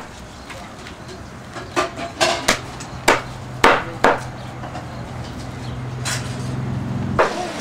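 Meat cleaver chopping through a roast pig on a hard floor: about seven sharp chops at uneven intervals, most in a quick run in the first half and one more later. A low steady hum grows louder underneath.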